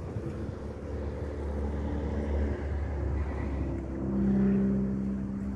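Low rumble of a passenger train hauled by a TEP70BS diesel locomotive, with a droning engine hum that swells to its loudest about four seconds in.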